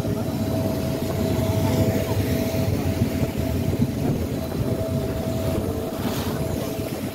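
Vaporetto's diesel engine running steadily under way, a constant low rumble with a steady hum on top, mixed with the rushing churn of its wake along the hull.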